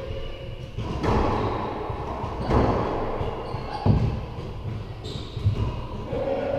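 A racquetball rally: the hollow rubber ball cracks off racquet strings and the court's walls several times, each hit ringing in the echoing enclosed court, the sharpest about two and a half and four seconds in.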